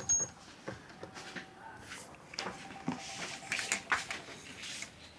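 A short high electronic beep from the Securico wireless alarm panel just after the start, then scattered clicks and knocks of the panel and sensors being handled.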